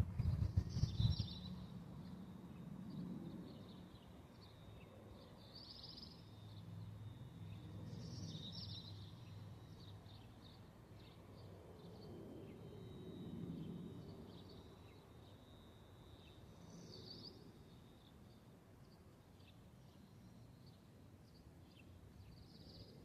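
Small birds chirping on and off over a faint low outdoor rumble that swells and fades, with a few low thuds in the first second.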